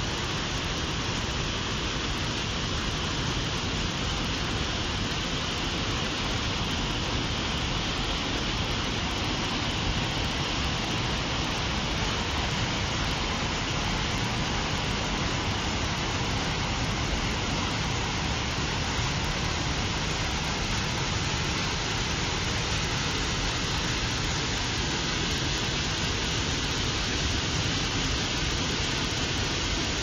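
Water of Stainforth Force on the River Ribble rushing steadily over limestone ledges and through rapids, a continuous unbroken wash of sound.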